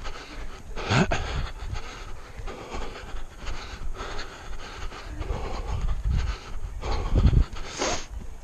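A runner's heavy breathing while running, with two loud breaths about a second in and near the end, over a steady low rumble.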